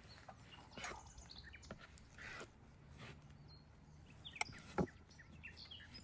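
A few short bird chirps over scattered light knocks and clicks; the two loudest clicks come about two thirds of the way in, close together.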